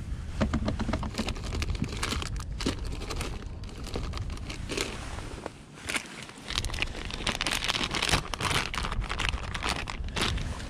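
Plastic crinkling and scattered clicks from hands handling a small chatterbait lure and rummaging among soft-plastic bait packets in a boat's storage compartment, with a busier stretch of crinkling past the middle.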